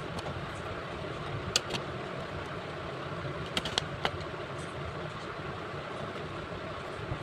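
Steady low background noise with a few light clicks, in small clusters about one and a half seconds in and again around three and a half to four seconds in.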